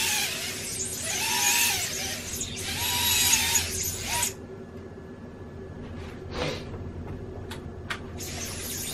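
Brushless motors of a small ducted FPV quadcopter whining at high pitch, the whine wavering up and down as the handheld drone is swung about, then cutting out suddenly about four seconds in: the motors stopping during acrobatic motion in air mode. Short spurts of motor noise and a few clicks follow.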